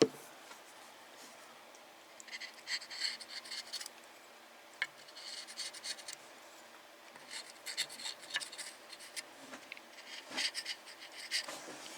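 A small hand tool scraping and scratching old thermal paste from around a graphics card's GPU die, in several short bursts of scraping with pauses between them and a single sharp click about five seconds in.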